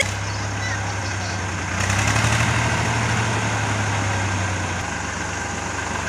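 Farm tractor's diesel engine running steadily with a low hum, getting a little louder for about three seconds in the middle.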